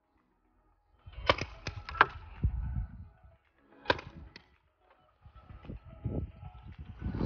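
Paintball marker shots: sharp pops beginning about a second in, a pair near the middle, and a quicker string of them near the end.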